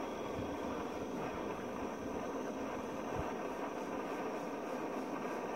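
A steady, distant engine drone that holds an even level throughout.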